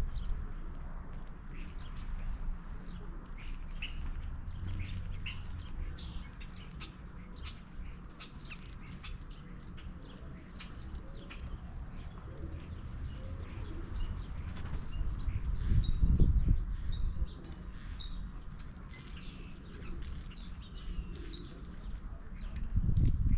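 Small songbirds chirping at a backyard feeder, many quick high chirps in a busy run through the middle, over a steady low rumble that swells briefly about two-thirds of the way through.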